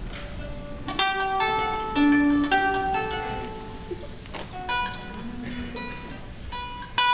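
Ukulele playing an instrumental intro: clusters of plucked notes about a second in and again near the end, with sparser single notes between.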